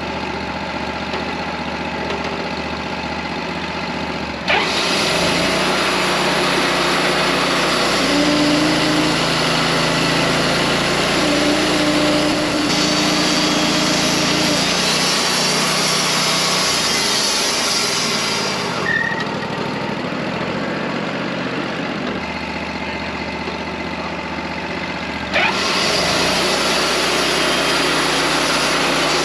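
Wood-Mizer LT40 Wide band sawmill running. Its engine holds a steady note while the blade makes a louder, hissier cut through a big oak log. The cut starts suddenly about four seconds in, eases back at around nineteen seconds, and picks up again suddenly near twenty-five seconds.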